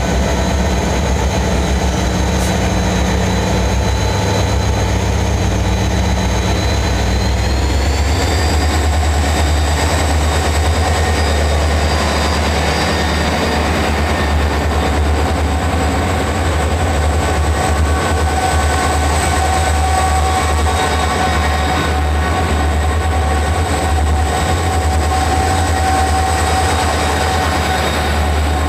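C class diesel-electric locomotive's engine running under load as the coal train gets under way: a heavy low rumble with a high whine that rises in pitch about eight seconds in, then holds steady.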